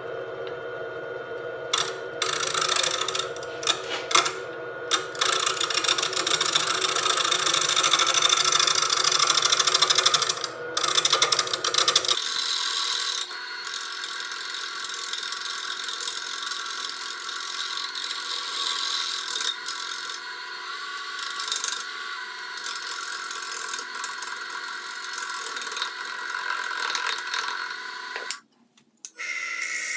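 Wood lathe running while a turning tool scrapes and cuts into a spinning maple blank, the cutting noise coming and going. The low motor hum stops abruptly about twelve seconds in, and the sound drops out for a moment near the end.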